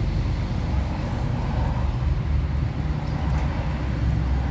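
Chicken stew boiling in an open pressure-cooker pot over charcoal: a dense, low bubbling rumble. The pressure has been released, but the pot keeps boiling from the charcoal's heat.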